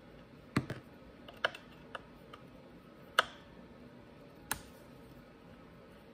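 Sharp metallic clicks and taps of a T27 Torx driver working the muffler-plate bolts on an Echo SRM-225 trimmer engine. About half a dozen unevenly spaced clicks, the loudest about half a second in and about three seconds in.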